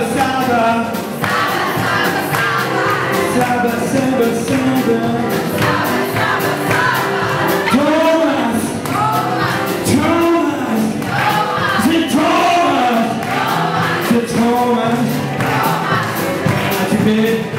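Live blues band playing: a man sings into a handheld microphone over electric guitar, bass, drums and keyboard.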